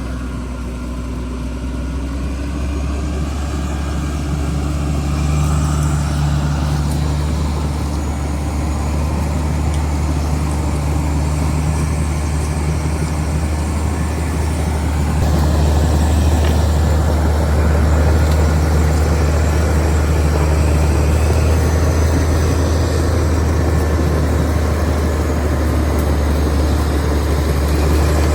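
Caterpillar D6R XL bulldozer's diesel engine running with a steady low drone, growing louder about halfway through.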